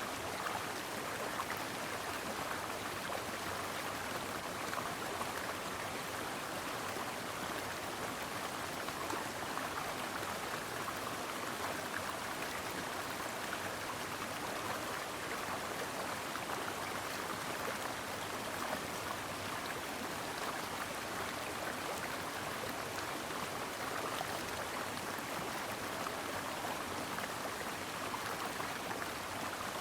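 A stream running steadily: a continuous, even rush of flowing water with no breaks or separate splashes.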